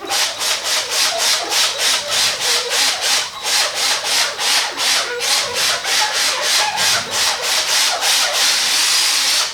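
A 3-inch foam polishing pad rubbing Meguiar's M205 finishing polish over a plastic headlight lens, spreading the polish to get it working. It goes in quick back-and-forth strokes, about three a second, and becomes a steadier rub near the end.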